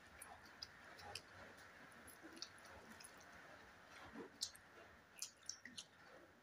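Quiet noodle slurping and chewing with scattered light clicks of metal forks against plates, a few sharper clicks between about four and six seconds in.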